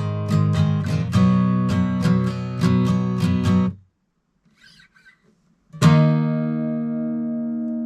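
Guitar strummed in quick repeated strokes, about three a second, that cut off suddenly a little under four seconds in. After a short pause a single chord is strummed about six seconds in and left ringing.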